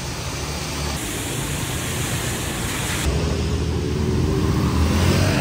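Steady hiss of rain with the low rumble of road traffic, growing gradually louder.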